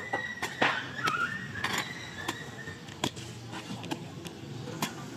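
A series of irregular sharp knocks and clicks, with a thin high whistle-like tone that stops about a second and a half in.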